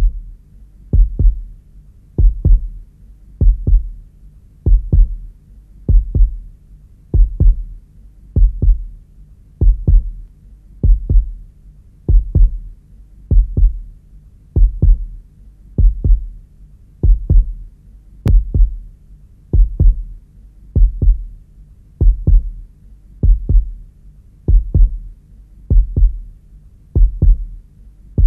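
Heartbeat sound effect: slow, steady lub-dub double thumps, about fifty a minute.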